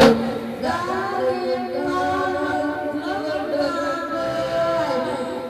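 Voices singing into handheld microphones, with a sharp click right at the start.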